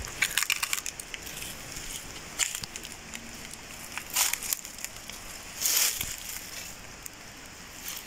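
Footsteps crunching on dry fallen leaves, a few irregular crackling crunches.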